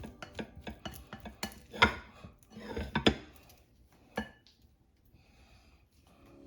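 Kitchen clatter: dishes and cutlery clinking and knocking, a quick run of sharp strikes with short ringing that stops after about four seconds.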